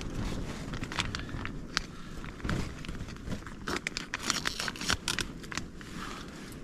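Crinkling and crackling of a foil-lined ration meal pouch being handled and pulled at to open it, in scattered short bursts that are thickest about four seconds in.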